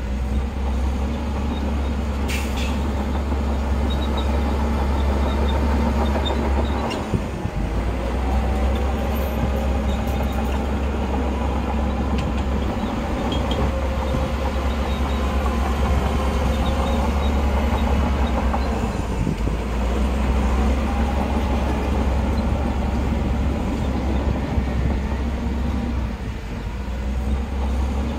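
Heavy diesel earthmoving machinery running: a deep, steady engine drone with a fainter whine that rises and falls above it.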